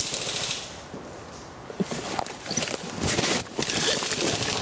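Footsteps and rustling through dry leaf litter and undergrowth as a person moves through woodland, louder and denser from about three seconds in.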